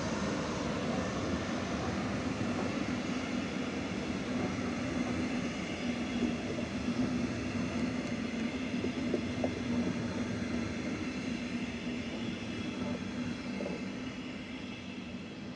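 Double-deck regional train hauled by a Siemens Taurus class 182 electric locomotive rolling past: a steady hum over the rumble of wheels on rail, fading near the end.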